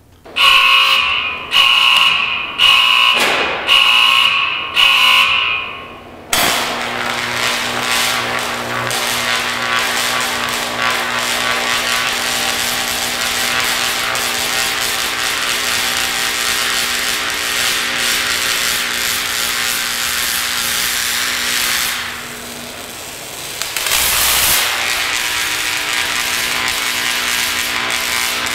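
Five loud beeps about a second apart, then a 75,000-volt DC arc switching on suddenly and crackling and buzzing continuously over a steady electrical hum, as the discharge keeps jumping from the electrode to the pineapple's leaves. The arc drops away for about two seconds near the end, then resumes.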